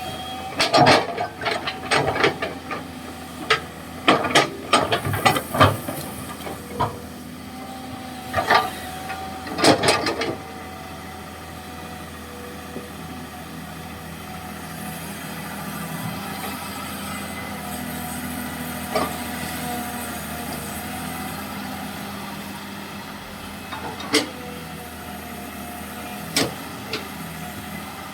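Komatsu PC200-6 hydraulic excavator running steadily, with a string of sharp knocks through the first ten seconds and a few single knocks later on.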